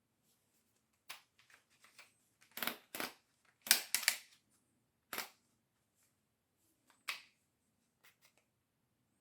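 Handling noises: a scattered series of short clicks and rattles, the loudest cluster a few seconds in, with single clicks later.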